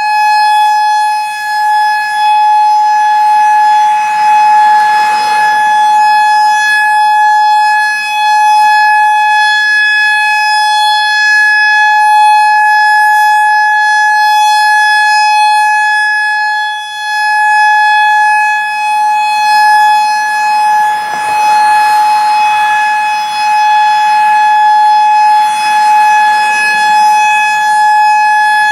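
Federal Signal EOWS 612 electronic outdoor warning siren sounding the Alert signal: one loud, unbroken steady tone with no rise or fall in pitch. A rushing noise swells under it about five seconds in and again in the last third.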